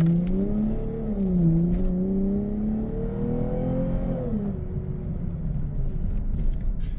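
Lexus IS350 F-Sport's 3.5-litre V6 through a Borla Type-S axle-back exhaust, heard from inside the cabin as the car accelerates under moderate throttle: a low exhaust note that climbs, dips about one and a half seconds in as it shifts up, climbs again, then falls away after about four seconds as the throttle eases.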